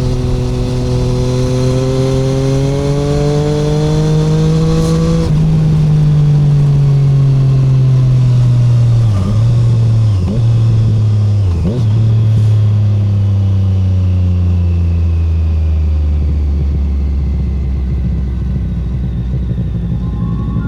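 2017 Triumph Street Triple 765R's three-cylinder engine through an SC Project SC1-R titanium exhaust with no dB killer, heard onboard. The revs climb for about five seconds, then fall away as the throttle closes, with three quick breaks like gear changes, and settle to a low steady run near the end.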